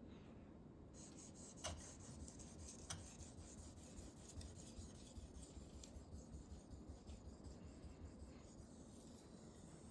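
Steel knife blade being stroked over a Naniwa 3000-grit whetstone: faint, repeated scraping strokes starting about a second in, with a couple of sharper ticks early on. The stone is establishing the edge bevel on a freshly reground, edgeless blade.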